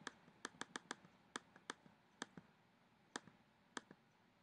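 Faint computer mouse button clicks, about ten in all: a quick run of four near the start, then single clicks spaced half a second to a second apart.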